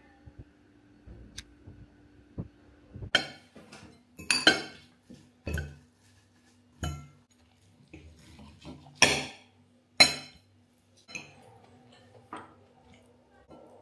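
Metal fork clinking and scraping against ceramic bowls during a meal: a scattered series of sharp clinks and knocks, the loudest about three, four and a half, nine and ten seconds in.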